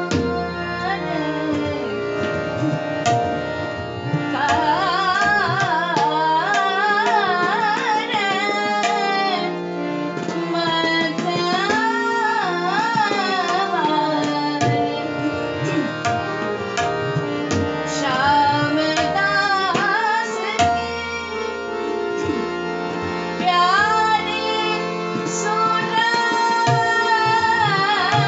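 A woman sings a Khamaj thumri in Hindustani light-classical style: ornate, wavering vocal runs come in phrases with short breaks. Tabla strokes run under the voice, with deep bayan bass swelling at times, over steady held accompanying notes.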